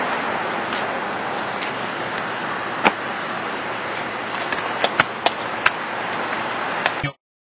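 Soccer ball being juggled: sharp taps of foot and knee on the ball, one about three seconds in, then a quick run of touches a few tenths of a second apart, over a steady loud outdoor hiss. The sound cuts off abruptly shortly before the end.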